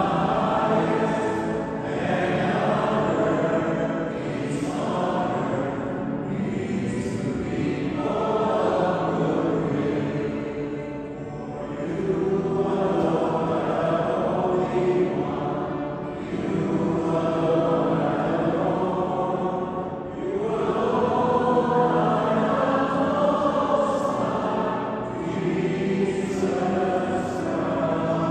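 A church choir singing a hymn, in sung phrases about four to five seconds long with short breaths between them.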